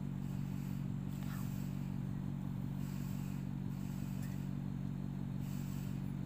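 A steady low mechanical hum, like a motor or engine running, holding one even pitch and level.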